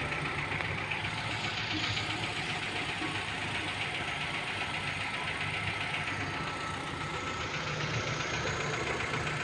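Hyundai Elantra engine idling steadily, with a thin steady whine over the running.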